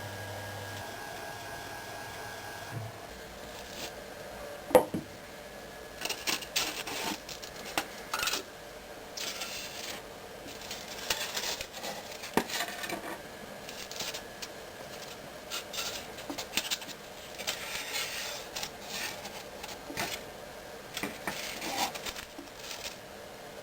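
A steady machine hum with a few steady tones stops about three seconds in. After that come irregular rubbing and scraping, as of something being handled, with one sharp click about five seconds in.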